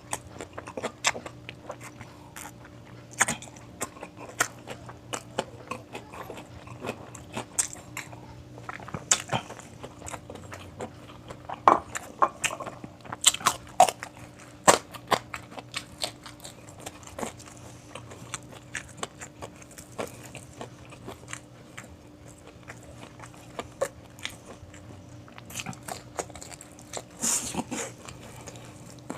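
A person eating close to the microphone: irregular crunching bites and chewing clicks. A faint steady hum lies underneath.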